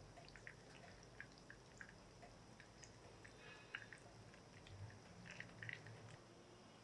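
Faint liquid sounds and small irregular clicks as a silicone spatula stirs butter melting in a frying pan, near silence overall.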